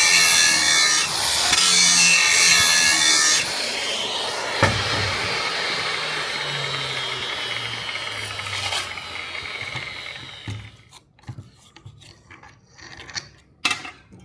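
A power grinder working metal, then switched off: its hum winds down in pitch over several seconds. A few light clicks and knocks follow.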